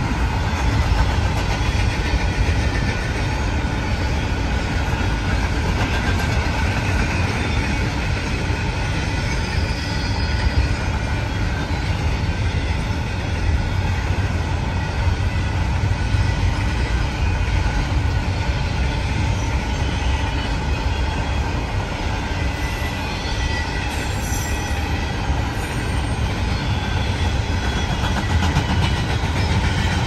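Double-stack intermodal freight train's container cars rolling past steadily: a continuous low rumble of wheels on rail.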